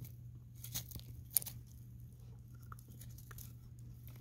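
An American Akita puppy chewing on a dry stick and tree branch, with a few sharp crunches and cracks of wood, the loudest about a second and a half in.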